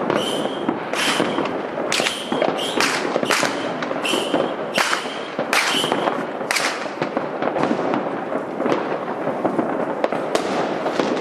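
Fireworks going off: a rapid run of sharp bangs, about two a second, over a steady crackle. Several of the louder bangs carry a brief high tone. The bangs thin out after about seven seconds.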